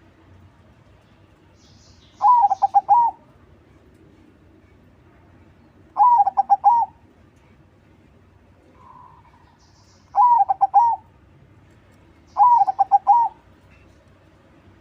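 Crossbred zebra dove (perkutut crossing) singing its cooing song four times, each phrase a quick run of four or five clear coos, a few seconds apart.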